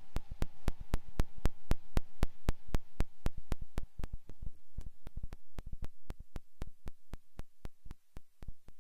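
Minimal experimental electronic music: an irregular stream of sharp clicks, about four or five a second, over a faint hiss that fades away.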